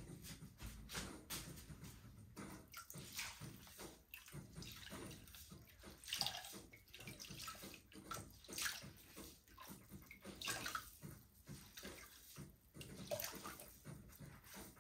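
Wet clay and water swishing under hands on a pottery wheel, in irregular short strokes.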